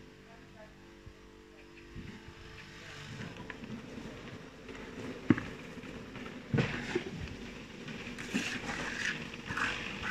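Steel hand trowel working wet concrete in a round umbrella-base mould, with a run of short repeated scraping strokes about two seconds from the end over a dull steady outdoor background. One sharp knock comes about halfway through.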